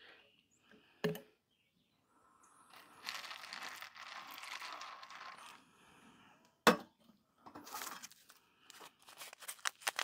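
Just-boiled water poured from a stainless steel kettle into a plastic bowl of dry macaroni, a steady pour lasting a few seconds, with a sharp metal clink before and after it. Near the end, a paper packet crinkles as it is torn open.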